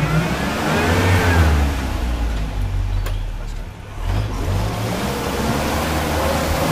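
Land Rover engine revving under load as the 4x4 pushes through a flooded, muddy trail, its pitch rising then falling in the first second or so and easing off briefly near the middle, with muddy water churning against the vehicle.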